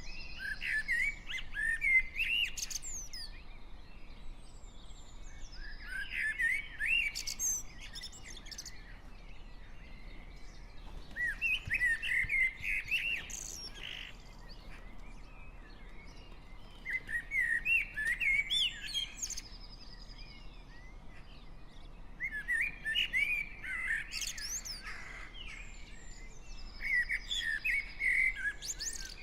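Garden birds singing in a spring dawn chorus. One bird's warbled song phrase, about two seconds long, repeats every five to six seconds, with thinner, higher calls from other birds in between and a faint distant traffic hum underneath.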